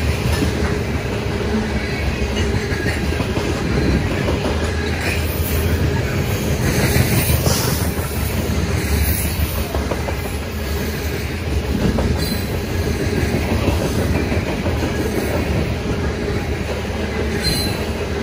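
Loaded covered hopper cars of a freight train rolling past close by, steel wheels rumbling and clacking steadily over the rails. A brief high wheel squeal comes about halfway through and again near the end.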